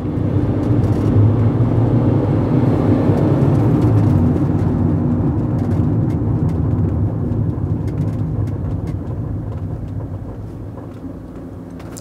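Cab interior noise of a 2009 Fiat Doblo cargo van on the move: engine and road rumble that builds over the first few seconds as the van picks up speed, then fades through the second half as it slows right down.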